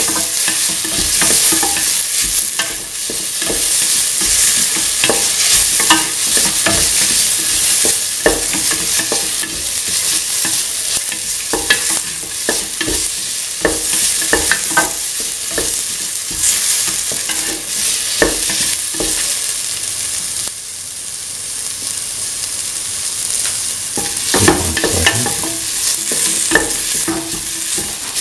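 Chopped tomato, onion, garlic, dried red chillies and fennel seeds sizzling in oil in a stainless steel pan with a steady hiss, stirred by a spatula that scrapes and taps against the metal many times, most busily near the end.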